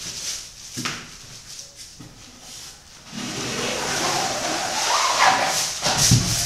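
A long wooden slat dragged across a wet, paint-covered canvas: a sustained scrape from about three seconds in, with a wavering squeak, then a heavy knock near the end. A few lighter knocks come before it.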